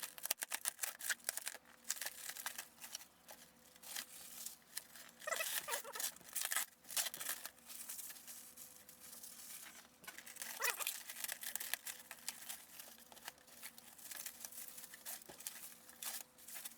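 Packing material being pulled and torn off a typewriter: a run of irregular tearing and crinkling rustles with short pauses between them.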